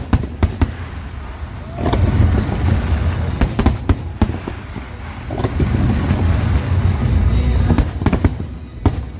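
Parente Fireworks aerial display going off: many sharp bangs and cracks in irregular clusters, over a continuous deep rumble of shell bursts.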